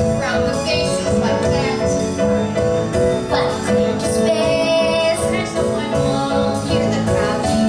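A group of boys singing a musical theatre song together, backed by a live band with piano and drums.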